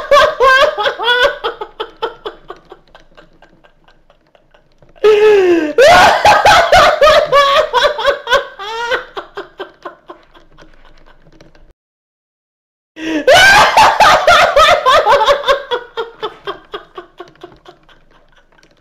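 A man laughing uncontrollably in three long fits. Each fit starts loud with a high, squealing whoop and trails off into rapid, fading ha-ha pulses, with a brief near-silent gap before the last one.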